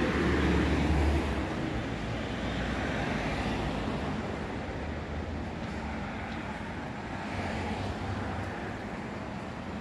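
City street traffic. A heavy low rumble from a nearby vehicle in the first second or so, then the steady noise of cars passing along the avenue.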